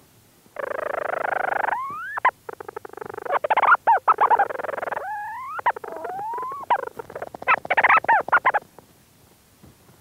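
Leach's storm petrel calling from inside its burrow, recorded close up: a long churring trill, broken by rising slurred notes and rapid stuttering chatters, which are the loudest part. The calling begins about half a second in and stops shortly before the end.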